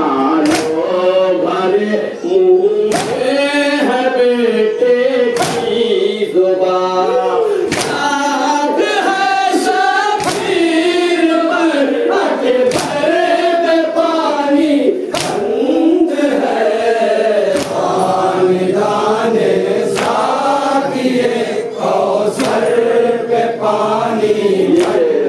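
A group of voices chanting a nauha, a Muharram lament, in continuous sung lines, with a sharp slap or hit now and then.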